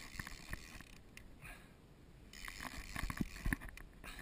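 Irregular clicks and knocks from a fishing rod and reel being worked during a fight with a hooked shark, with a denser cluster a little after halfway.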